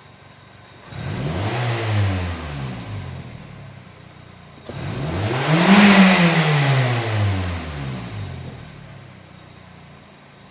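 Chevy Prism's Toyota 1.8L four-cylinder engine revved twice with quick throttle snaps, each rev climbing and then sinking back to idle, the second louder. The engine is misfiring and running lean, which the technician suspects is caused by restricted fuel injectors.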